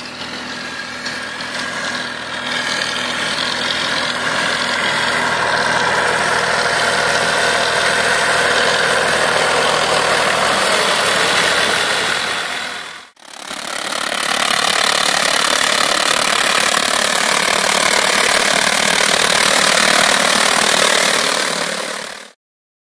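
A tractor engine runs with a vine trunk cleaner working through the grass under the vines, growing louder as the machine approaches. About 13 s in there is a brief dropout, then the cleaner is heard close up as a loud, even whirring hiss. It cuts off abruptly near the end.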